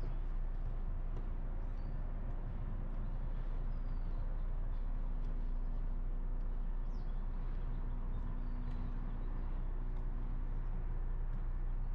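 Steady low rumble of street traffic, with a few faint, brief bird chirps scattered through it.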